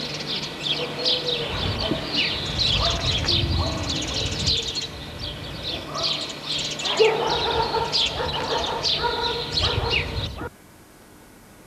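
Many small birds chirping busily together, with low rumbling noise on the camcorder microphone underneath. About ten seconds in the sound cuts off abruptly, leaving only a faint steady hum.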